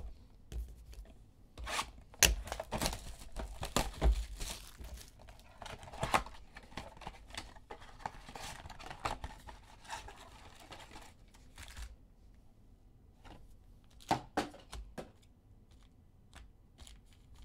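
Cardboard trading-card mega box being torn open and its wrapped card packs handled: a dense run of tearing and rustling for the first dozen seconds, then scattered crinkles and clicks as the packs are laid out and opened.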